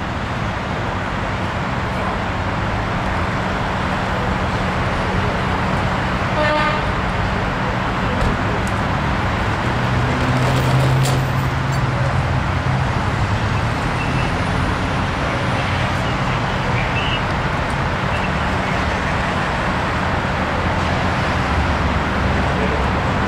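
Steady noise of highway traffic passing, with engines running nearby. A brief vehicle horn toot about six and a half seconds in.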